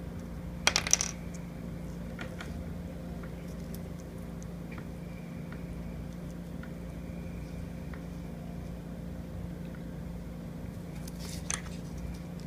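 Small hard plastic clicks and taps from a capsule toy being handled: a quick cluster of sharp clicks about a second in, a few faint ticks after, and another click near the end, over a steady low hum.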